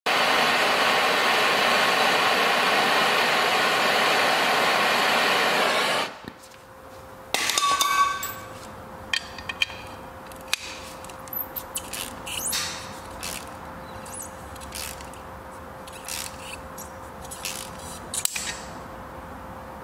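A loud, steady rushing noise for about six seconds that cuts off abruptly. Then hand tools clinking and tapping on the metal parts of an engine, with one ringing metal clang soon after the cut and scattered light knocks and clicks over a faint steady hum.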